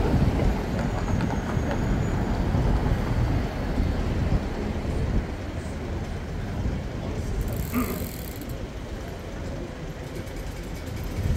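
A Melbourne tram rumbling past amid street traffic, loudest in the first few seconds and then slowly fading. A brief high-pitched sound comes about eight seconds in.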